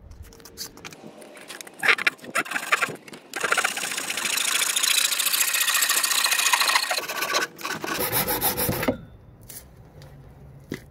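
Hand saw cutting through Schedule 40 PVC pipe: a few knocks, then about four seconds of quick saw strokes, and a shorter burst of strokes near the end as the piece is cut off.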